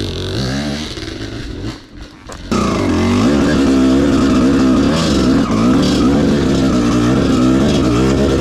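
Two-stroke dirt bike engine revving in short blips, then held open hard from about two and a half seconds in, its pitch rising and falling as the throttle is worked.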